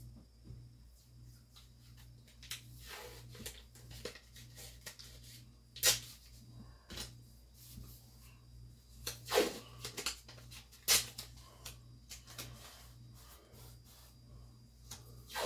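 Blue painter's tape being pulled off and handled, with tearing and crinkling and a few sharp clicks, over a steady low hum.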